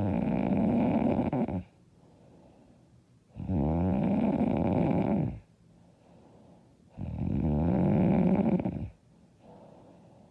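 A woman snoring loud and hard: three long snores of about two seconds each, coming every three and a half seconds or so, with quiet breathing between them.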